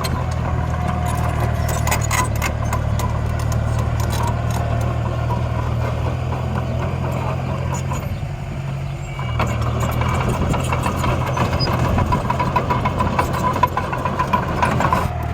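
Miniature dump truck and bulldozer machinery running with a steady low engine hum and scattered clicks. The sound dips about eight seconds in and picks up again a second later with a steady whine.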